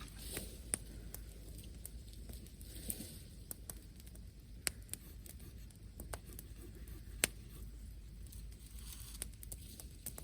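Wood fire crackling, with scattered sharp pops at irregular intervals over a faint steady hiss; the loudest pops come just under a second in, at about four and a half seconds, and at about seven seconds.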